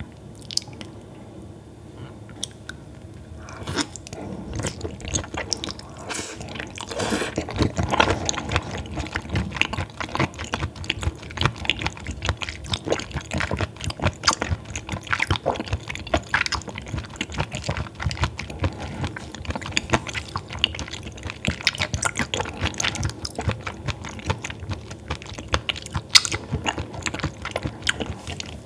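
Close-up chewing of raw baby squid sashimi: a dense run of small clicks and smacks from the mouth, starting about three seconds in.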